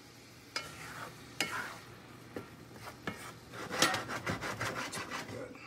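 Wooden spatula scraping and stirring sliced mushrooms in a cast-iron skillet, over a faint sizzle of wine reducing in the pan. The strokes begin about half a second in, come sparsely at first, then in a quick run near the end.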